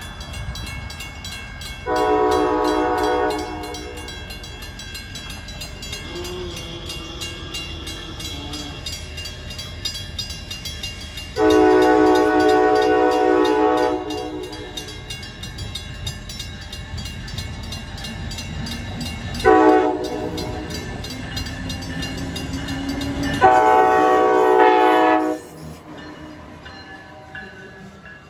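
Amtrak train's horn sounding the grade-crossing signal: long, long, short, long, a chord of several tones. Grade-crossing bells ring steadily behind it, and the train's rumble builds near the end as it reaches the crossing.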